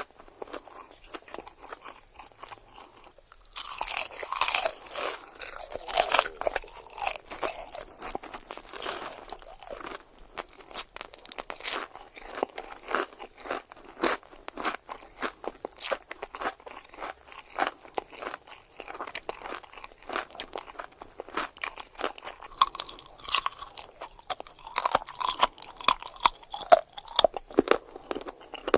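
Close-miked eating: a person biting and chewing crunchy food, a steady run of crisp crunches. It is quieter for the first few seconds, then the crunching gets louder and denser.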